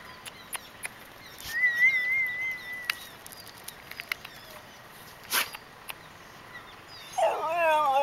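Street dog howling: one long howl begins near the end and slides down in pitch. Earlier there is a thin, high wavering note, with scattered small chirps and clicks behind it.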